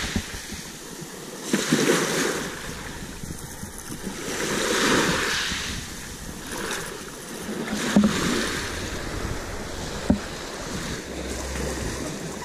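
Small waves breaking and washing up and back over a pebble beach, the rush swelling and ebbing about every three seconds, with a few short sharp knocks.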